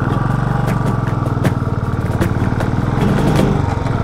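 Single-cylinder engine of a Royal Enfield Classic motorcycle running at low revs with a steady pulsing exhaust beat as the bike pulls off the roadside onto the road. There is a brief dip about three seconds in.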